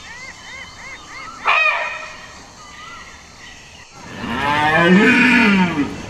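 A red deer stag roaring, one long, deep call about two seconds long that starts about four seconds in and is the loudest sound. Before it come repeated high chirps and a single short, sharp call about a second and a half in.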